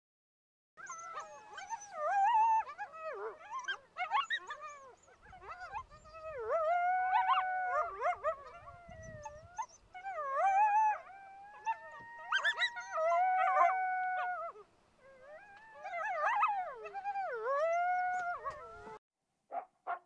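Coyotes howling and yipping, with several wavering, overlapping calls sliding up and down in pitch. It starts about a second in, rises and falls in bouts, and cuts off suddenly about a second before the end.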